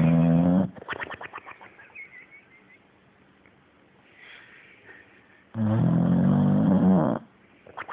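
A sleeping pet snoring in loud, long, pitched cartoon-like snores. The first snore ends just under a second in and trails off into a quick flutter of short puffs. A second snore starts about five and a half seconds in and lasts about a second and a half.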